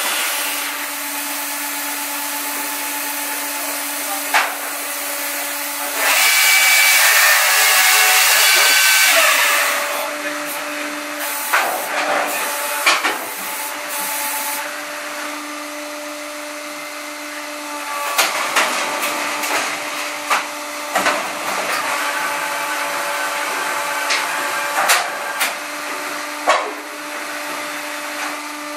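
A firewood processor (saw-splitter) running, with a steady hum from its drive. About six seconds in, a loud noisy stretch of roughly three and a half seconds, typical of its saw cutting through a log. Scattered knocks and clatter of logs and machine parts follow.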